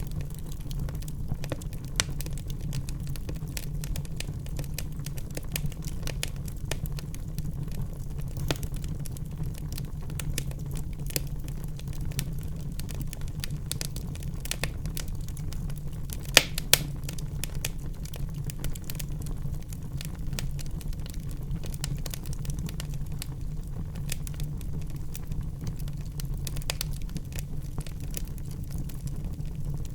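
Wood fire burning in a fireplace: a steady low rumble of the flames with constant sharp crackles and pops, two louder pops about halfway through.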